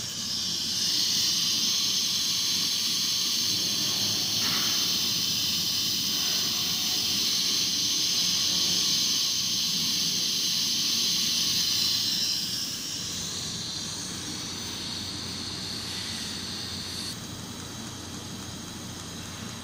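Welding arc of a longitudinal seam welding machine running along a straight seam, a steady hiss that grows louder about a second in and drops off noticeably after about twelve seconds.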